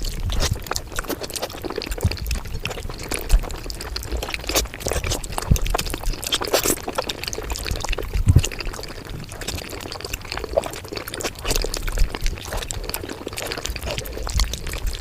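Mukbang eating sounds played back at five times speed: a dense, irregular run of quick chewing and mouth clicks.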